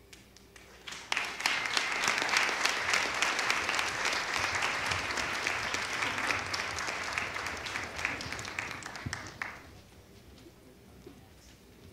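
Theatre audience applauding. The clapping breaks out about a second in, holds, and dies away after about eight and a half seconds.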